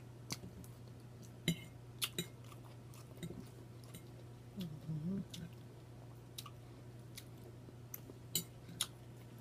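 A person chewing food close to the microphone, with wet mouth smacks and lip clicks at irregular moments, over a steady low electrical hum. A short hummed 'mm-hmm' of enjoyment comes about five seconds in.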